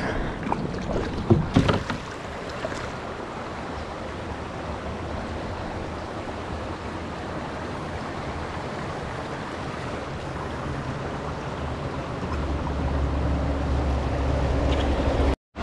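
River water rushing steadily through a rapid, with a few sharp splashes in the first two seconds. A deeper rumble builds near the end, then the sound cuts off suddenly.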